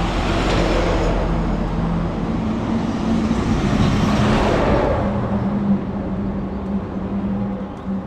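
Cars passing by on an adjacent road: a rush of tyre and engine noise that swells and fades twice, over a steady low hum.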